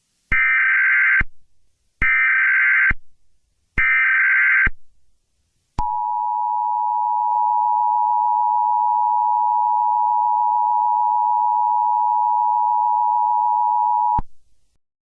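Emergency Alert System header: three short bursts of screeching SAME digital data tones, about a second each, then the EAS two-tone attention signal. The attention signal is a steady dual tone near 1 kHz that lasts about eight seconds and cuts off abruptly, signalling that an emergency announcement follows.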